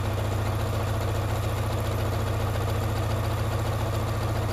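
Sewing machine fitted with a walking foot running steadily at speed, zigzag-stitching through several layers of fabric, with a fast, even stitching rhythm.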